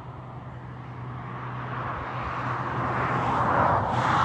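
A vehicle passing on the highway: road and tyre noise swells to a peak near the end, over a steady low hum.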